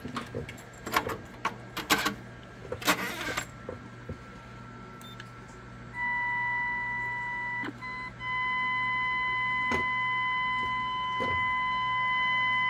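Clicks and knocks of controls being handled, then about six seconds in a steady test tone comes up through the Ranger RCI-2995DX CF CB radio's receiver speaker. It drops out briefly about two seconds later and then holds steady. This is the receiver being fed a test signal to check its sensitivity.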